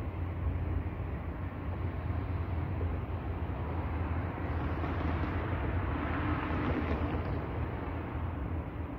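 NS SLT electric multiple unit running near the level crossing: a steady low hum under a rushing noise that swells about four seconds in and eases off near the end.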